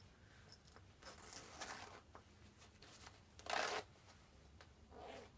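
Quiet room with a few brief rustling, handling noises, the loudest a short burst about three and a half seconds in.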